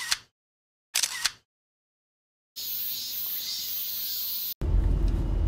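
Two brief clicks about a second apart, then a steady high-pitched droning of cicadas in summer woodland. Near the end it cuts abruptly to a loud low car-cabin rumble.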